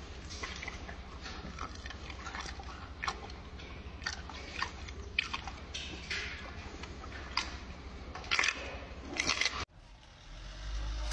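Gorilla chewing a banana, with many short, sharp mouth clicks. The chewing cuts off abruptly about a second and a half before the end, giving way to a low rumble.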